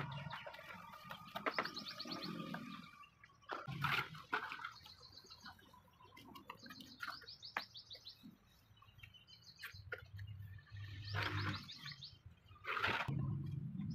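Small birds chirping in short, repeated high trills, over wet slaps and scrapes of cement slurry being spread by hand over a mould.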